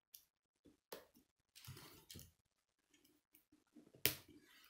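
K'nex plastic rods and connectors being handled and snapped together: a few sharp clicks, the loudest near the end, with a brief rustle of pieces being fiddled with in between.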